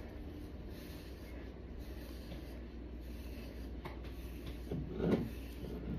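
A hairbrush drawn gently through coily 4C hair, a faint steady rubbing of bristles through the hair. A brief louder sound comes about five seconds in.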